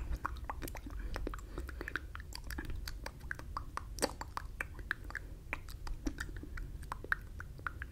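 Close-miked mouth sounds from silently mouthing words: a rapid, irregular stream of wet lip smacks and tongue clicks.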